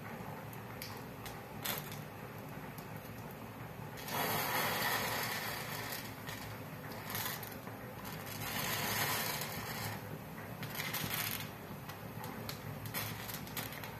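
Wooden matchsticks burning, crackling with scattered sharp pops, and swelling three times into a louder hissing rush of flame.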